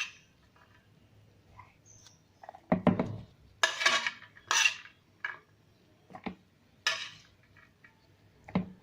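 Kitchen utensils and dishes clattering: about half a dozen separate knocks and clinks, the loudest a few seconds in, as the fava bean mixture for ta'meya is handled and added to the blender.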